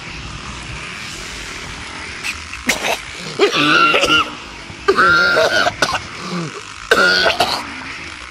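A man coughing and clearing his throat, in three or four loud, drawn-out bursts over a steady background hiss.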